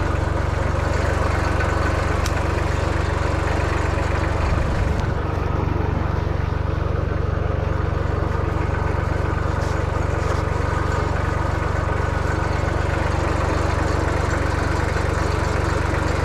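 Engine idling steadily, running through the whole stretch without any change in speed.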